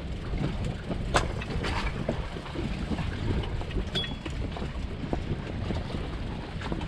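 Steady low rumble of a small fishing boat at sea, with wind and water noise on the camera microphone. A few sharp clicks come about a second in, and a brief high tone sounds about four seconds in.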